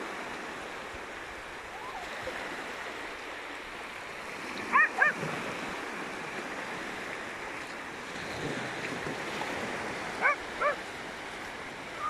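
Small waves breaking and washing up over flat wet sand at the water's edge, a steady wash of surf. Twice, about 5 s apart, comes a quick pair of short animal calls.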